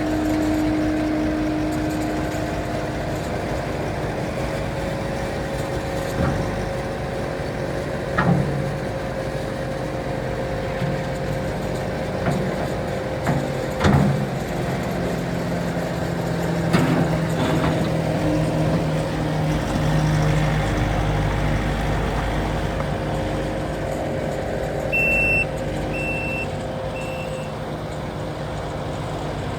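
Kubota SSV65 skid steer's diesel engine running steadily, with a few sharp clunks and, near the end, three short beeps.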